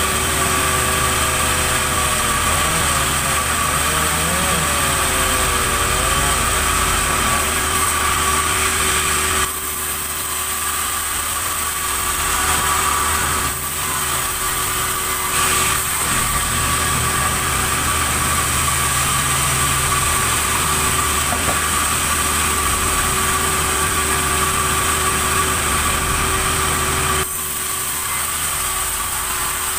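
Sawmill machinery running steadily with a constant mechanical hum and whine. In the first few seconds a pitch wavers up and down, and the sound changes abruptly twice.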